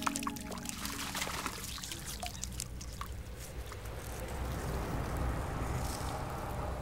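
Water scooped from a pool by hand and splashed onto a face, trickling and dripping back down. There are a few sharp drips in the first second or so, then a steady wash of running water.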